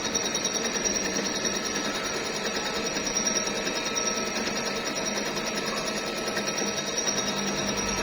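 Milling machine skimming a car cylinder head: the cutter runs steadily through the cut with a fast, even rattle and a steady high whine.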